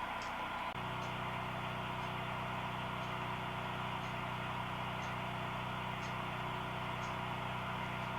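HO-scale model train running on the layout: a steady hum and track noise, the hum growing stronger about a second in, with faint light clicks a little under a second apart.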